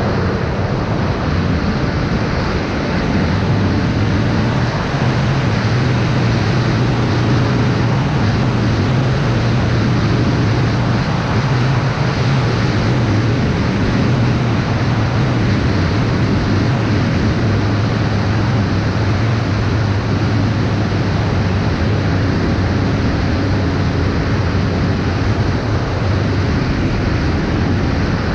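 Steady rush of wind on the microphone with a low hum that shifts a little in pitch, as recorded by a camera on a flying FPV drone.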